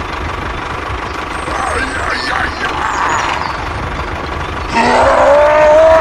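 Tractor engine sound running steadily with a low rumble. Near the end a louder, voice-like pitched call rises and falls in pitch over it.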